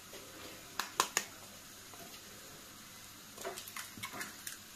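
Quiet kitchen handling of eggs over a stainless steel mixing bowl: three sharp clicks about a second in, then soft rustling and light taps near the end as an egg is brought to the bowl.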